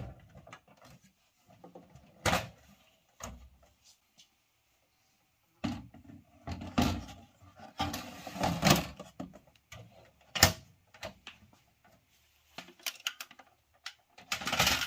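Scattered clicks and knocks of a Ricoh MP C306-series copier's plastic parts being handled and pushed back into place during reassembly, with clusters of handling noise, a sharp click about ten seconds in and a denser burst near the end.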